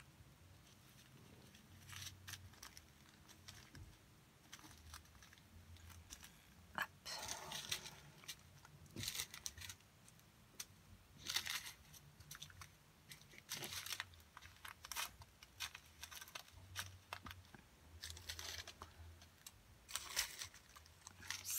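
Small plastic bags of diamond-painting drills being handled: faint, irregular crinkling and rustling in short bursts, with a few light clicks.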